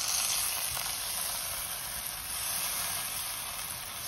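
Chopped tomato frying in hot oil in a pan, a steady sizzle as the tomato gives off its water.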